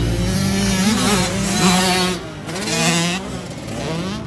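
Several dirt bike engines revving up and down, their pitch repeatedly rising and falling as the bikes accelerate and shift.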